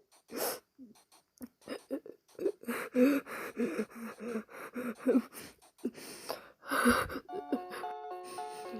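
A person sobbing: short, shaky gasping breaths broken by whimpering cries, with a loud sharp breath about seven seconds in. Soft background music with a simple stepping melody comes in near the end.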